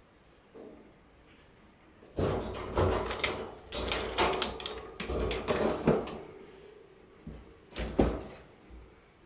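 Wire pet cage rattling and clattering as a cat climbs and paws around inside it, in a busy run of knocks lasting about four seconds. Two more sharp knocks follow near the end, the last one the loudest.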